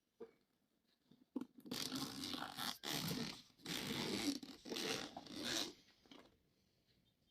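Packaging of a radio transmitter being opened by hand: four rasping pulls of about a second each, with a couple of small ticks before them.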